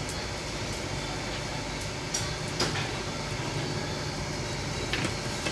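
A steady low rumble with a few sharp clicks from wire grilling racks being handled, about two seconds in and again near the end.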